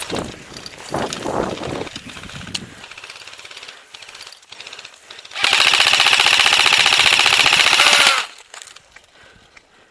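Airsoft rifle firing one long full-auto burst of rapid shots, close by, lasting a little under three seconds, laying down cover fire.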